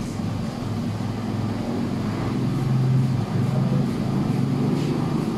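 A steady low mechanical hum, like a motor running, that swells a little around the middle. A faint crisp click sounds near the end.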